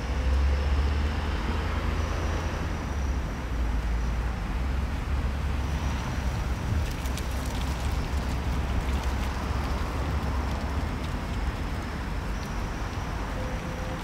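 Steady low rumble of distant city traffic, with a few faint clicks in the middle.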